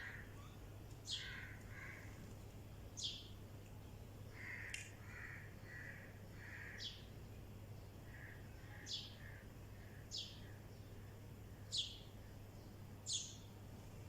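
Mynas and sparrows calling: short, sharp high chirps that drop in pitch, one every one to two seconds, with runs of softer, lower notes between them.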